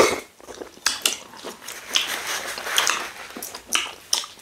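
Eating sounds from mouthfuls of ogbono soup and fufu taken by hand: a string of short wet smacks and clicks from lips and tongue as fingers are sucked and licked clean.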